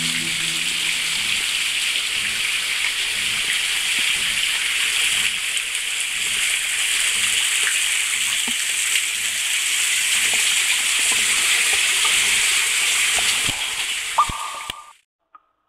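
Water pouring in thin streams from the rock over a slate mine adit entrance and splashing into the flooded floor below, a steady hiss of falling water. It cuts off suddenly near the end.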